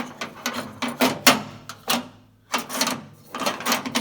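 Metal tailgate latch catch being handled, its loose plunger rattling about: a string of irregular light clicks and knocks with a short lull a little past the middle.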